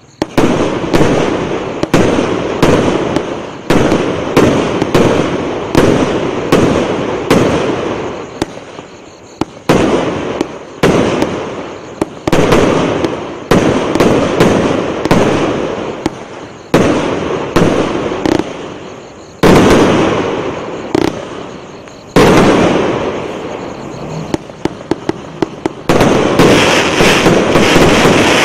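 A 56-shot 1.2-inch firework cake firing its shells one after another, about one or two bangs a second, each bang followed by a fading tail. Near the end the shots turn into rapid crackling pops.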